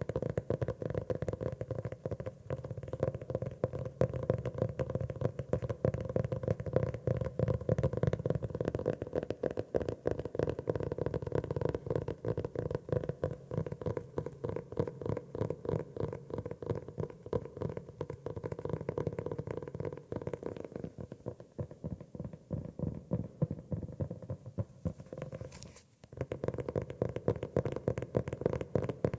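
Rapid, continuous tapping on a grey notebook, with many close-set taps that stop briefly near the end.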